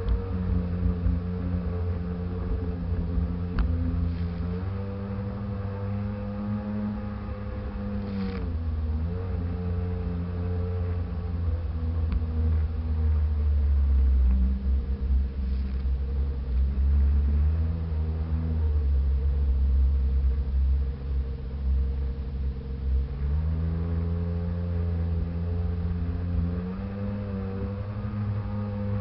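Sea-Doo jet ski engine running under way, its pitch stepping up about four seconds in, dropping around eight seconds and climbing again around twenty-three seconds as the throttle changes, over a heavy low rumble.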